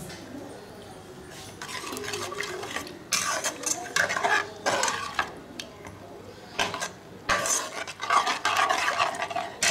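Metal spoon stirring and scraping through thick rajma gravy in a pot, in uneven runs of strokes with small clinks against the pan, pausing briefly a little past the middle.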